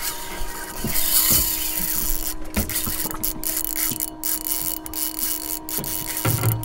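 Spinning reel's drag buzzing as a hard-pulling hooked fish takes line during the fight, in stretches broken by short pauses, over a steady hum.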